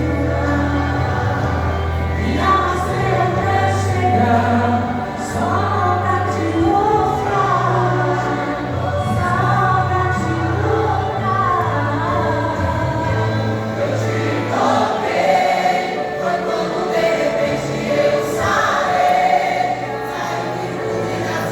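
Church vocal group singing a gospel hymn together, with instrumental accompaniment holding low bass notes that change every second or two.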